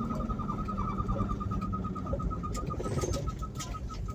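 A rhythmic chirping squeak from the drivetrain of a Mk3 Ford Cortina on the move, over low road and engine noise, slowing from about eight to about five chirps a second as the car slows. The owner takes the noise for the mount of the U-joint on the prop shaft.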